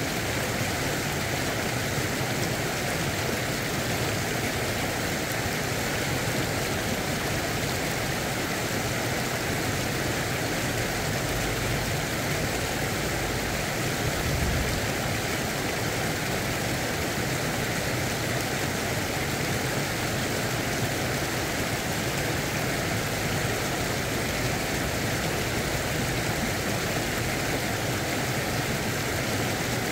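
Steady rush of creek water pouring over a low weir.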